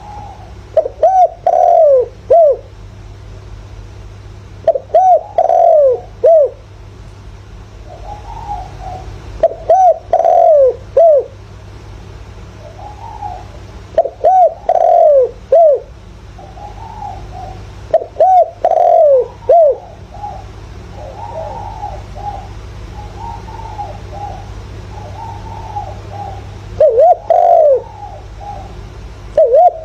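Spotted dove cooing, the call of a decoy bird: loud phrases of a few rolling coos repeated every four or five seconds, with softer coos in between and a longer gap filled by quieter cooing in the second half.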